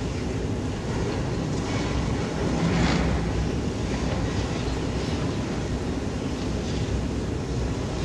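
Demolition machinery at work: the steady low rumble of a long-reach demolition excavator's diesel engine running, with a louder swell about three seconds in.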